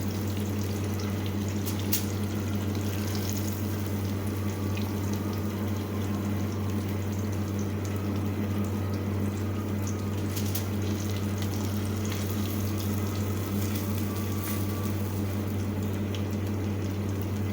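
Fish frying in hot oil in a pan, a steady sizzle with scattered small crackles, over a constant low electrical hum.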